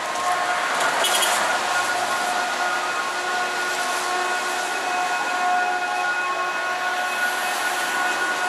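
Rainy city street ambience: a steady hiss of rain and wet traffic, with several sustained whistle-like tones held over it and a brief clatter about a second in.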